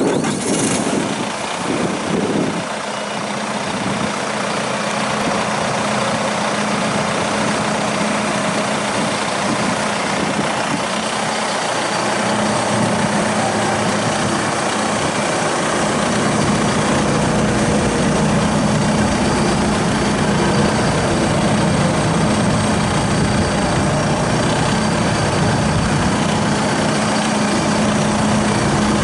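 Diesel engine of a 2017 John Deere 5115M tractor idling with a steady hum, growing slowly louder over the first half.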